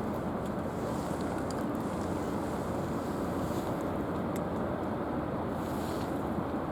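Steady low rumble of the destroyer JS Izumo's machinery, with wind on the microphone.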